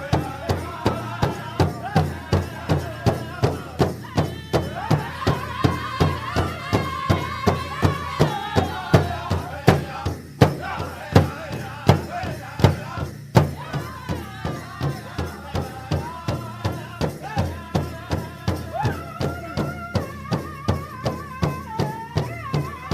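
Native American drumming and group chanting: a steady, even drumbeat under voices singing in wavering, bending lines.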